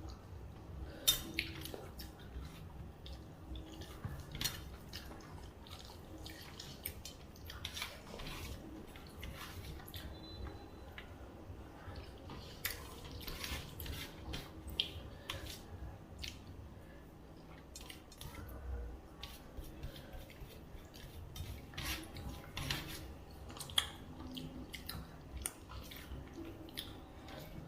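Eating at a table: scattered clinks and taps of plates and bowls, with the sounds of food being eaten.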